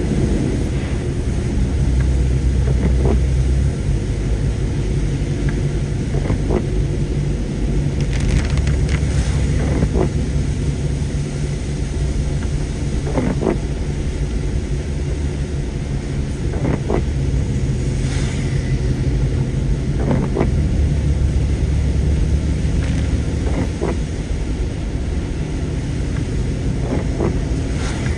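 A car driving: steady engine and road rumble, with occasional short clicks or knocks.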